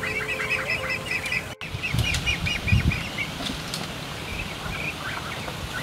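A flock of penned ducks being fed, calling and flapping: a run of quick, high chirping calls, about five a second, over the first three seconds, with a few low wing-flapping thumps about two seconds in.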